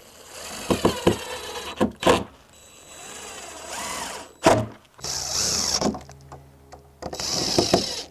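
Power drill driving screws into a wooden gate, running in about four bursts of one to two seconds each, with sharp knocks in between.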